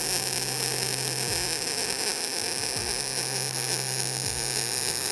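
Wire-feed (MIG) welding arc running a bead on a butt joint: a steady, dense hiss that cuts off abruptly at the end. The bead is being run with too fast a travel speed, a cold weld that gets no penetration on the back side.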